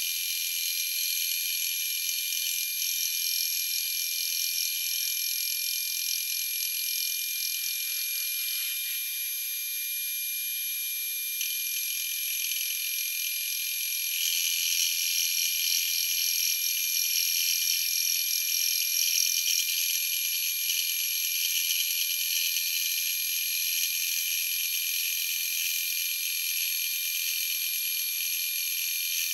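Round column milling machine running a homemade fly cutter through a facing cut on a cast iron Cummins 5.9 exhaust manifold: a steady whine with a hiss of cutting, louder for several seconds in the middle.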